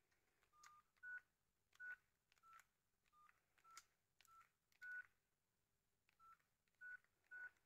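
Faint keypad beeps from a Nokia 6070 mobile phone as its keys are pressed: about eleven short beeps, each with a key click, irregularly spaced.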